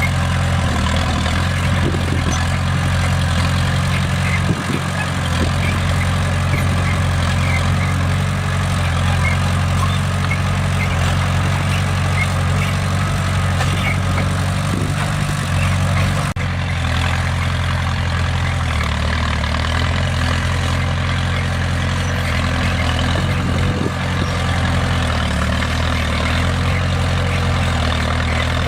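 Heavy diesel engine of a bulldozer running steadily under load, its low note shifting slightly a few times.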